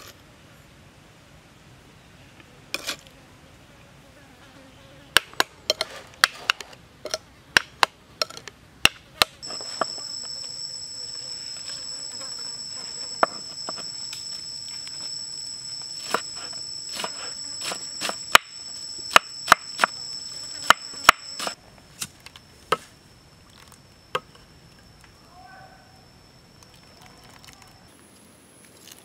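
Knife chopping green onions on a wooden cutting board: sharp, irregular knocks, sometimes in quick runs. A steady high-pitched insect buzz sounds alongside from about a third of the way in, fading near the end.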